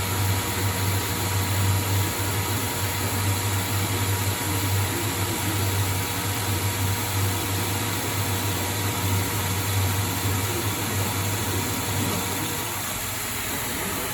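ProtoTrak CNC lathe running a rough-turning pass on a 4140 heat-treated steel shaft under power feed: a steady machine hum with an even hiss. The low hum eases about twelve seconds in.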